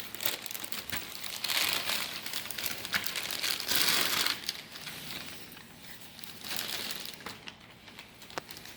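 Plastic packaging crinkling and rustling in bursts with small clicks as model-airplane parts are unwrapped. It is loudest in the first half and dies down after about five seconds.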